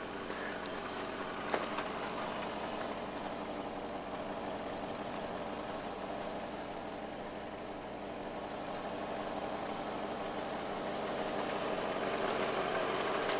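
A steady mechanical hum, like an engine running, with hiss; it grows a little louder near the end.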